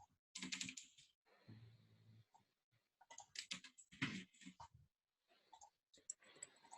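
Faint computer keyboard typing and clicking in two short runs of keystrokes, one near the start and a longer one in the middle.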